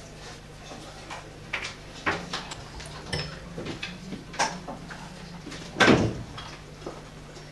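Scattered short scrapes and taps of drawing on paper, with a louder thump about six seconds in, over a steady low hum.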